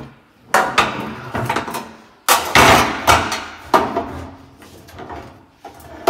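Knocks and clatter of a two-burner gas cooktop's enamelled sheet-metal top and panel being fitted back together by hand. The loudest rattle comes a little over two seconds in, with a few sharper knocks around it.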